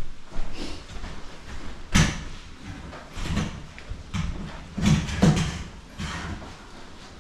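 Irregular knocks and thumps, loudest about two seconds in with a few more around five seconds, over low rustling and handling noise.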